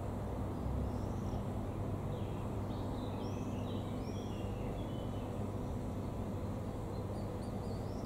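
Steady low outdoor background rumble with a faint hum, and a small bird chirping several short, high calls, mostly in the middle.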